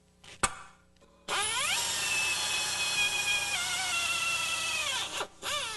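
A single hammer blow on a center punch marking a steel rivet. Then a drill with a 3/16-inch bit spins up and runs steadily, drilling through one of the factory rivets that hold the upper ball joint in the control arm. Its pitch dips partway through, winds down, and a brief second burst follows near the end.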